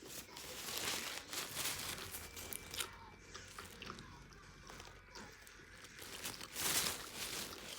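Close-miked biting and chewing of a Burger King Impossible Whopper, plant-based patty in a soft bun: irregular wet mouth noises, with a louder burst near the end.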